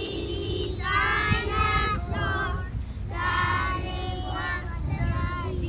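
Young children's voices singing together in two short phrases, over a steady low rumble.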